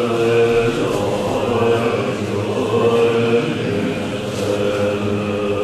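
Many Tibetan Buddhist monks chanting prayers together in low, sustained voices, the liturgy of a long-life puja, in phrases of a second or two.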